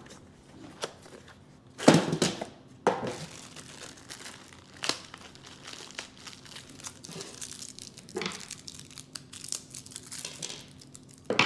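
Plastic packaging of drawer-glide hardware crinkling as it is handled and opened, with a few louder sharp crackles.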